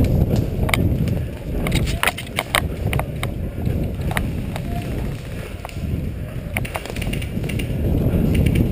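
Low rumble of wind and movement on the microphone during an airsoft game, with scattered sharp clicks and cracks, several close together about two to three seconds in.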